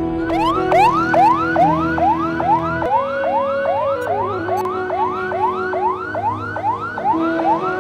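Emergency-vehicle siren in a fast yelp: a rising wail that repeats about twice a second, over a steady music bed.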